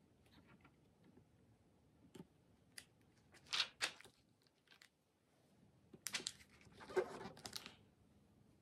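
A page of a paper LEGO instruction booklet being turned, with a papery rustle about three and a half seconds in. Near the end come several sharp clicks and rustling as loose plastic LEGO pieces are handled on the table.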